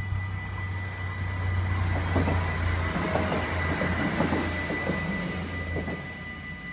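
A two-car LINT 41 diesel multiple unit passes over a level crossing: a low diesel rumble swells and fades, with clusters of wheel clicks over the rail joints in the middle. A steady high ringing from the crossing's warning bells carries on throughout.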